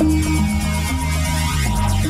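Instrumental electronic music from a DJ mix: a synth bass line stepping between notes over a steady beat, with sweeping filter effects near the end.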